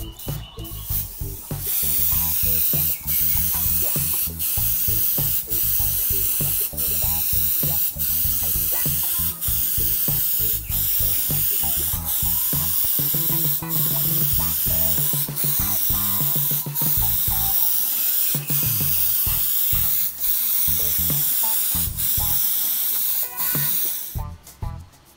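Airbrush spraying paint, a steady loud hiss of air and paint that starts about a second and a half in and stops shortly before the end, with brief dips about every second and a quarter.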